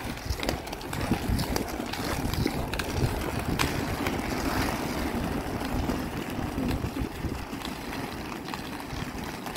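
Inline skate wheels rolling over asphalt: a steady rolling noise with a few faint clicks.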